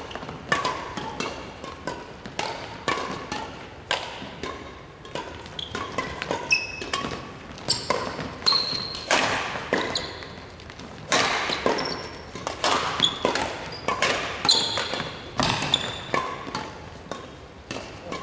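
Badminton rackets striking shuttlecocks in rallies across several courts, a steady run of sharp cracks about once or twice a second, with short high squeaks of shoes on the wooden floor, echoing in a large hall.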